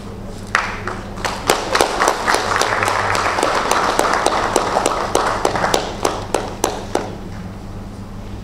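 Audience applauding. The clapping starts about half a second in, is thickest in the middle, then thins to a few separate claps and dies out about seven seconds in.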